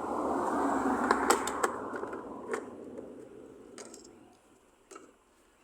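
A rushing noise that fades away over about four seconds, with a few sharp clicks scattered through it.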